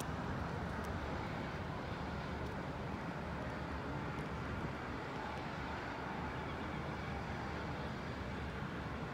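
Steady city traffic noise: a constant hum of road traffic with no distinct events.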